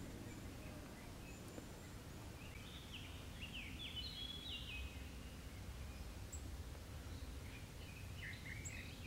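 A small songbird singing: a phrase of quick, clear notes about two and a half seconds in, and another starting near the end, over a steady low background rumble.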